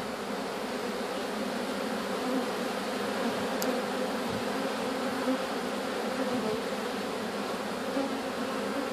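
A large swarm of honeybees buzzing in a steady, dense hum as the bees move down into a hive box after being shaken in.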